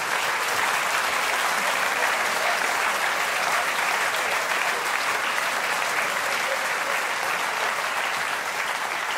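Theatre audience applauding, a steady round of clapping.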